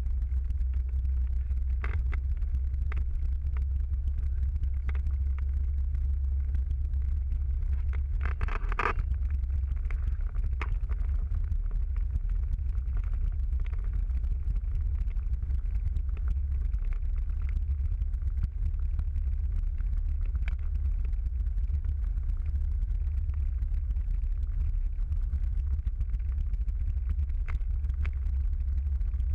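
Steady low rumble of a car driving at a constant pace, heard inside the cabin, with scattered faint ticks and a brief louder rattle about eight or nine seconds in.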